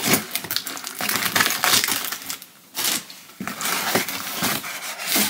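Cardboard parcel box being torn open by hand: tape and cardboard flaps ripping and brown paper packing crinkling, in a dense run of sharp crackles and rustles with a brief lull partway through.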